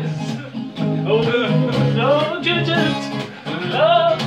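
Acoustic guitar strummed in a steady rhythm while a man sings over it, his voice swooping up and down in pitch a couple of times.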